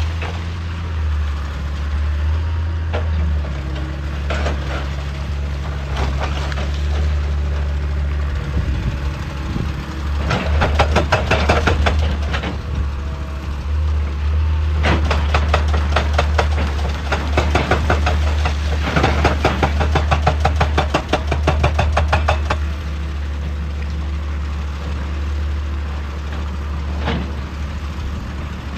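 Heavy excavator's diesel engine running steadily, with two spells of rapid rhythmic clattering impacts, about ten a second: a short one around a third of the way in and a longer, louder one through the middle.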